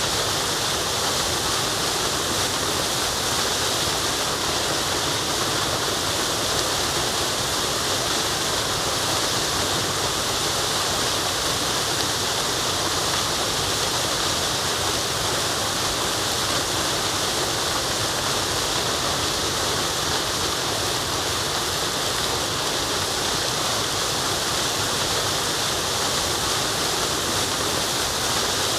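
Waterfall rushing in a steady, unbroken stream of white noise, with most of its energy in the high hiss.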